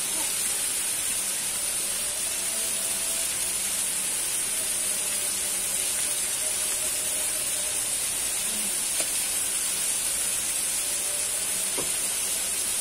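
Chicken pieces frying in a pan in their own rendered fat: a steady, even sizzle.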